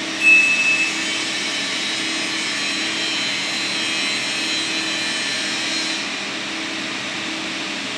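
Steady mechanical whir and hiss of running machinery or ventilation, with a faint low hum underneath. A short high beep sounds near the start, and the hiss eases slightly about six seconds in.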